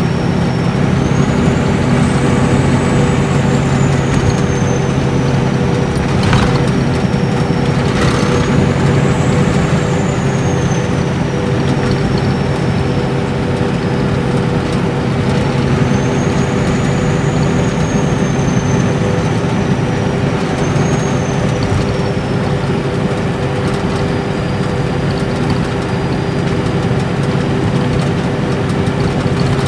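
Inside a Nissan Diesel Space Arrow RA coach cruising on an expressway: its inline-six turbo diesel and torque-converter automatic run with a steady low hum and road noise. Over this a high turbo whine rises and falls about three times, and there are two sharp knocks a couple of seconds apart near the first quarter.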